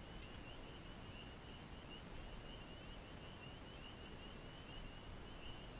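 Quiet ambience of faint low hiss with a steady, rapid high-pitched chirping trill from a distant animal chorus running through it.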